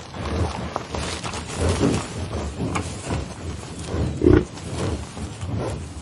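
Bison grunting: a series of low calls about a second apart, the loudest about four seconds in.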